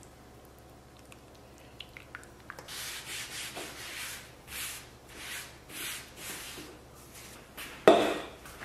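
Soft rubbing swishes, about two a second, then a loud knock near the end as a bowl is set down on a wooden table.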